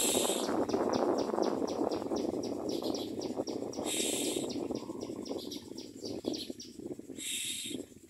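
Common myna nestlings give three short, harsh, hissing begging calls: at the start, about four seconds in and near the end. Between them runs a fast, even chirping at about four a second, over a low rushing background noise that fades in the second half.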